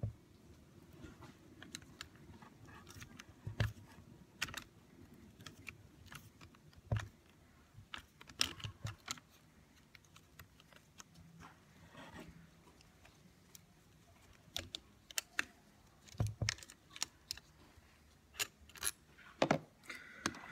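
Irregular small clicks and taps of a screwdriver and metal-on-metal handling as T40 Torx screws are worked out of the rear housing of an Eaton Model 7 hydrostatic transmission. The clicks come in scattered groups, busiest about eight seconds in and again near the end.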